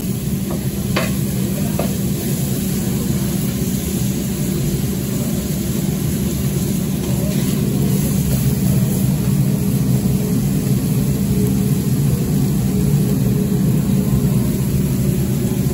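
Steady low mechanical drone, as from kitchen machinery, with two or three light clicks about a second in.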